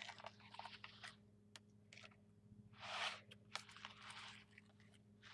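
Faint scraping and squishing of a plastic card drawn through a layer of shaving cream in a plastic tub: a few soft strokes, the loudest about three seconds in.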